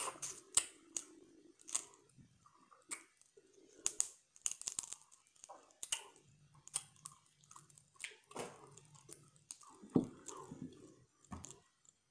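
Close-miked mouth sounds of chewing seafood-boil shrimp: wet smacks and many sharp clicks, the loudest about ten seconds in.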